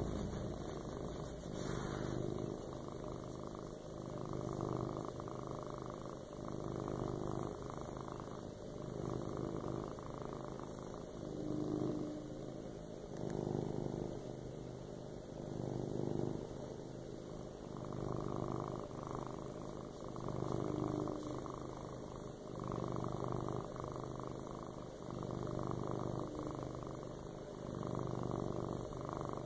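Tabby cat purring steadily while being scratched under the chin, the purr swelling and fading with each breath, about every two seconds.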